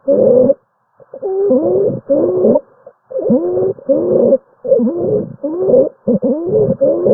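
Recorded abnormal lung sounds: wheeze-like musical tones, several gliding pitches at once on each breath, with the breaths coming in quick in-and-out pairs about every second and a half. This is the sign of narrowed or partly blocked airways.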